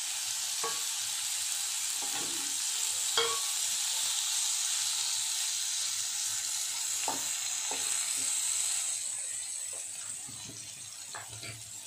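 Stuffed okra sizzling in hot oil in a nonstick kadhai, with a few light knocks and scrapes of a wooden spatula pushing the pods around. The sizzle eases off near the end.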